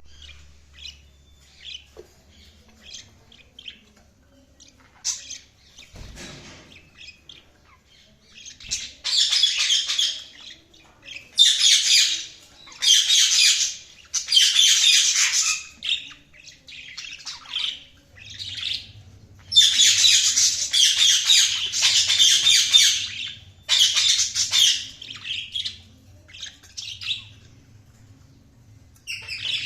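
Budgerigars chirping, soft and sparse at first, then breaking into loud bouts of fast warbling chatter, each a second or two long, with short pauses between.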